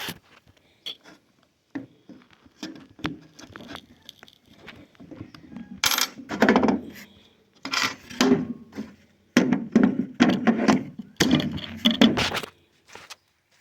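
Small metal parts of a battery angle grinder clinking and rattling as its disc is tightened down: a few sharp clicks, then bouts of rattling and scraping about halfway in. The grinder's motor is not running.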